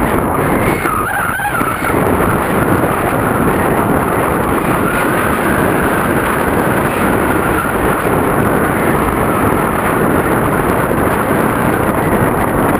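Wind noise from the airflow of a paraglider in flight buffeting the camera's microphone: a loud, steady rushing without letup.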